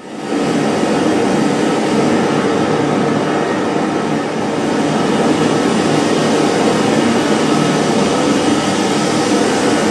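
Reversed, effect-processed TV ident audio: a loud, dense, steady wash of noise with many held tones, swelling up out of silence at the start.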